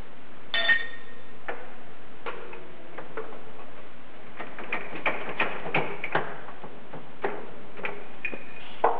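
Steel parts clinking and tapping against each other and the press plate as a bearing, shaft and pressing tube are set up on a shop press for pressing a bearing on. One clink about half a second in rings briefly, and a quick run of clinks comes around the middle.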